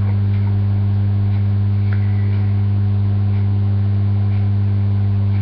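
Steady low electrical mains hum on the recording, a constant drone with fainter buzzing overtones above it.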